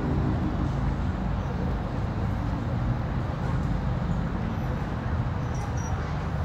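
Steady low outdoor background rumble and hiss, with no distinct event standing out.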